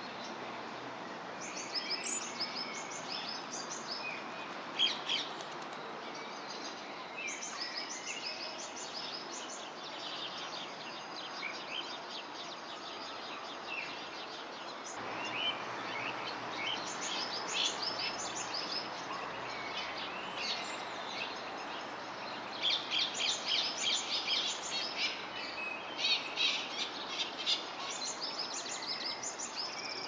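Small birds chirping and calling in short high notes over steady outdoor background noise, becoming busier in the second half with quick runs of chirps near the end.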